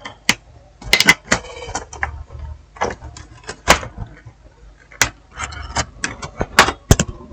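Laptop keyboard being pried out of its case: a run of sharp plastic clicks and snaps as the clips let go, with a short rasping scrape about a second and a half in.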